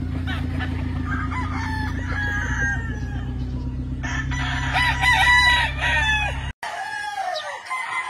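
Several gamecock roosters crowing, their calls overlapping and loudest about five seconds in, with clucking between. Under them runs a steady low mechanical hum that cuts off abruptly about six and a half seconds in.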